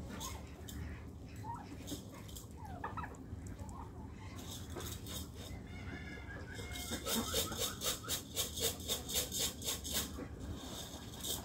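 Mixed flock of chickens, ducks and turkeys calling and clucking while being fed, with short calls and sliding notes. In the second half a loud, regular run of sharp sounds comes about three times a second and stops shortly before the end.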